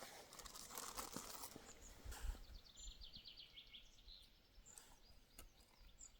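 Quiet outdoor ambience in which a small songbird sings one short phrase of quick high notes about two and a half seconds in, with a few faint high chirps, scattered faint clicks and a soft low bump.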